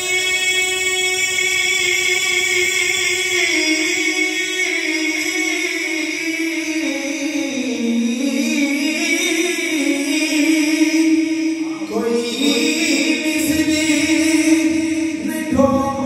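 A man singing a Punjabi naat unaccompanied, holding long notes that slide up and down, with a brief break for breath about twelve seconds in.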